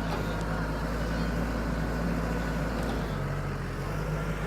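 A farm vehicle's engine running steadily, its note shifting slightly about three seconds in.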